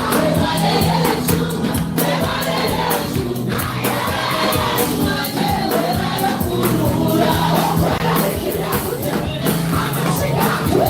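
Church praise music with a steady drum beat and held bass notes, with a congregation singing along.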